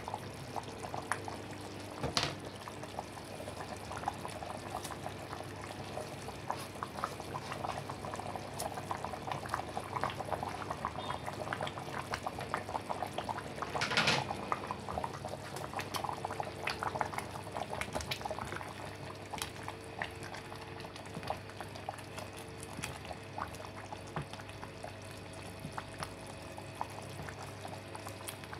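Chicken curry bubbling at a steady boil in an aluminium pressure-cooker pot, a dense crackle of popping bubbles, with one brief louder burst about halfway through.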